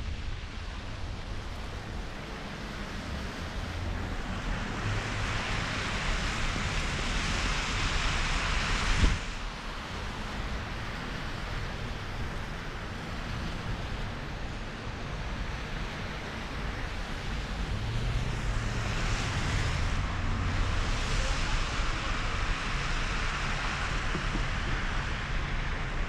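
Wind rushing over a camera microphone while riding, with the hiss of tyres on a wet, slushy street and the low rumble of traffic. The hiss swells twice, and there is a sharp knock about nine seconds in.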